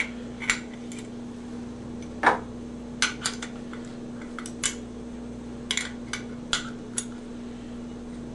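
Metal clinks and clicks of a wrench on brass pipe fittings as a pressure gauge is backed off and turned on a portafilter tester assembly, about a dozen scattered taps with one heavier knock a little over two seconds in. A steady low hum runs underneath.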